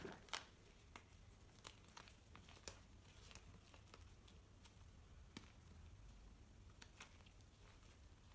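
Pink reformed gym chalk crunching and crackling as hands squeeze and break up chunks: faint scattered crackles, with two louder crunches right at the start.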